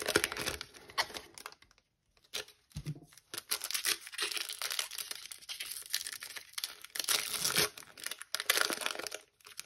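Foil trading-card pack wrapper being torn open and crinkled by hand, in irregular crackling bursts with a brief pause about two seconds in.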